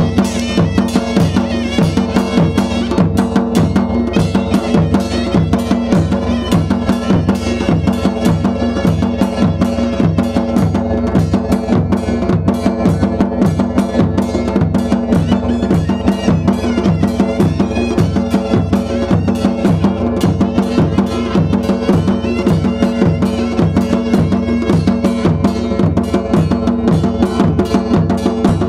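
Himachali Nati folk dance music: steady drumming, about three beats a second, under sustained melody tones.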